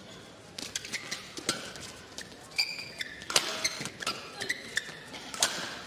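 Badminton play on court: sharp clicks of rackets striking the shuttlecock and players' footfalls, with a few short, high squeaks of court shoes on the mat.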